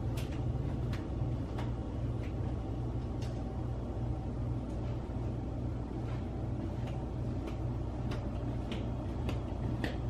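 Steady low mechanical hum, with faint, irregular clicks and ticks over it.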